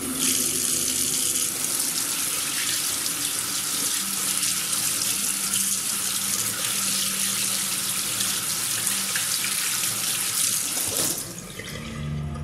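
Tap water running hard into a stainless steel sink, splashing as a knife blade is rinsed under the stream. The water cuts off suddenly about a second before the end, and a low music drone comes back in.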